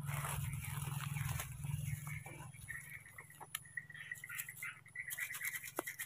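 Light rustling and scratching as baby monkeys clamber about, louder in the first two seconds, with scattered small clicks afterwards.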